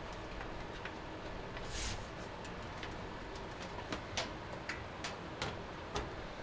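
Light, irregular clicks and taps of cables and plastic parts being handled at the back of a PC case, about a dozen small ticks, with a short rustle about two seconds in.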